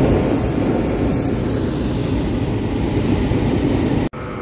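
Hot air balloon's propane burner firing, a loud steady rushing blast that cuts off suddenly near the end.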